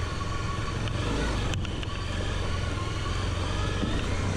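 Off-road motorbike engine running steadily as the bike rides down a dirt track, with a single sharp knock about a second and a half in.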